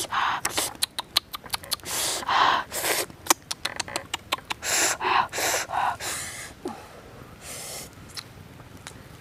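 Short breathy puffs of a person's breath, coming about once a second, with quick sharp clicks between them during the first few seconds; the puffs thin out near the end.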